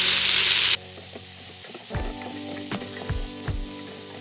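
Sliced onions and baby carrots sizzling in the stainless inner pot of an Instant Pot on sauté. The sizzle is loud at first and drops off abruptly under a second in. After that a wooden spoon stirs the vegetables, with a series of short knocks against the pot.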